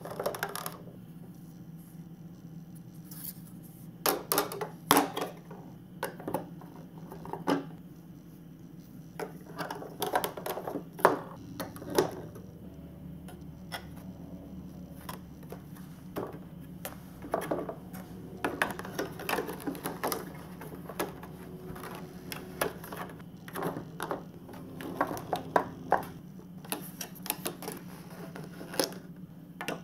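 Plastic toy marble-run pieces being pressed and snapped together, giving irregular sharp clicks and knocks, some in quick runs.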